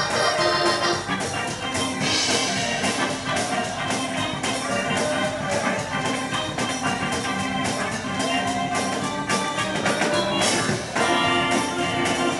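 Church band music with sustained organ chords over a steady drum beat.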